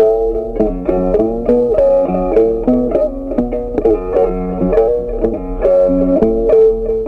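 Background instrumental music: a melody of short plucked-string notes over a steady bass line.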